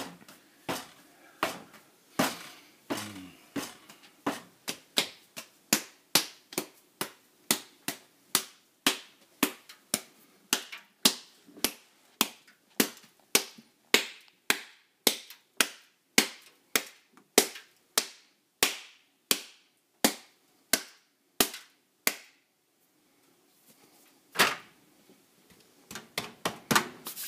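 Hands slapping and patting soda bread dough into a loaf: a steady run of sharp slaps that quickens from under two to about three a second. The slaps pause briefly near the end, then come back as a faster flurry.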